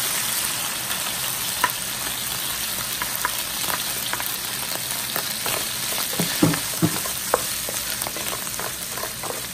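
Sliced mushrooms and anchovies frying in oil in a nonstick frying pan, a steady sizzle, while a wooden spoon stirs them with scattered clicks and knocks against the pan, loudest about six to seven seconds in.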